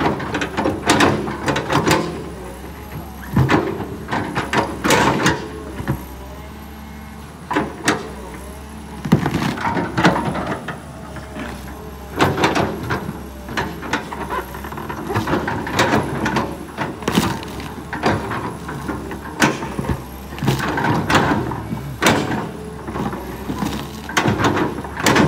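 Kobelco SK200 hydraulic excavator's diesel engine running steadily under load while the bucket digs out tree stumps, with many irregular sharp cracks, scrapes and creaks as roots and soil are torn and pushed.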